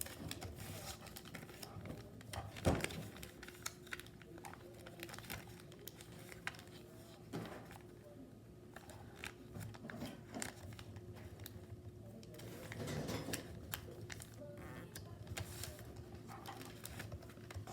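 A square sheet of paper being folded and creased by hand: short crinkles and rustles, with one louder snap about three seconds in, over a faint steady hum.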